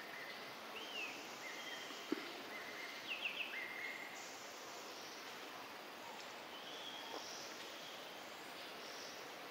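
Outdoor ambience: a steady background hiss with several short bird chirps and whistles over the first four seconds, plus a single soft click about two seconds in.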